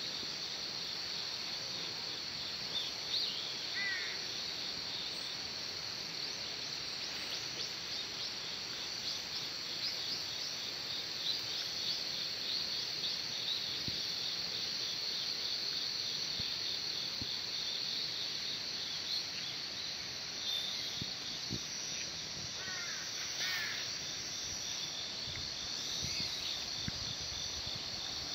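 Crickets chirping in a dense, steady high-pitched chorus. A bird calls briefly about 4 seconds in and again a few times past the 20-second mark.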